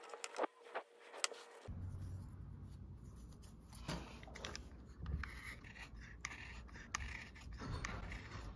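Light pencil scratching and taps on a small basswood lure blank. After a sudden change about two seconds in, a steady low rumble with scattered soft knocks and scrapes as the blank is handled.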